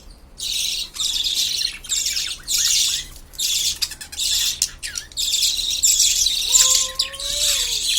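Baby birds begging to be fed from their mother's crop: harsh, raspy, high-pitched calls in quick repeated bursts of about half a second each.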